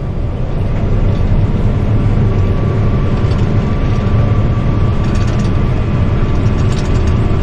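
Large diesel machine running steadily, with a thin constant whine over a heavy low drone. It fades up over the first second, then holds level.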